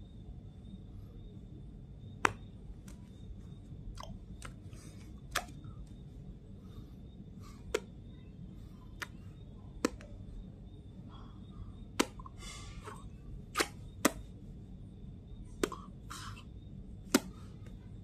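About ten sharp clicks at irregular intervals, a second or two apart, close to the microphone. Under them run a steady low hum and a faint high steady tone.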